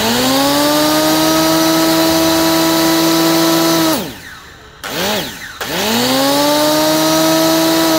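Makita grooving saw's electric motor switched on twice: it spins up to a loud, steady whine, runs about four seconds, then winds down quickly on its brake. A brief blip of the trigger comes just before the second run.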